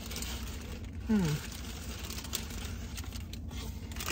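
Quiet eating sounds: faint clicks and paper-wrapper rustles from sandwiches being eaten, over a steady low hum. About a second in, one of the eaters gives a short 'mm' hum that falls in pitch.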